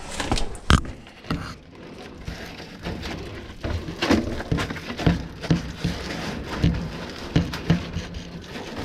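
A series of irregular knocks and taps, typical of parts and tools being handled during a dryer repair. There is a sharp knock about a second in, then a run of knocks roughly every half second in the second half.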